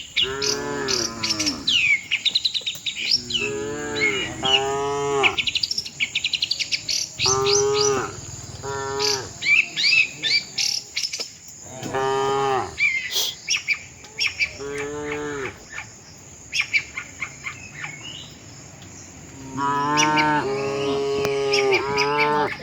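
Cattle mooing repeatedly: a string of separate moos, each about a second long, with a longer run of calls near the end. Birds chirp and trill steadily in the background.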